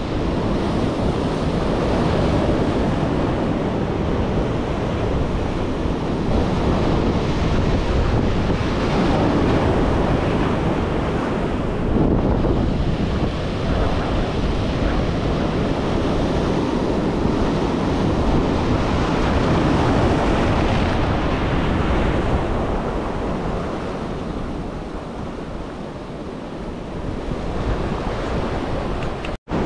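Ocean surf rushing and breaking on the shore, with wind buffeting the microphone. The rush swells and eases, dips for a few seconds near the end, and cuts out for an instant just before the end.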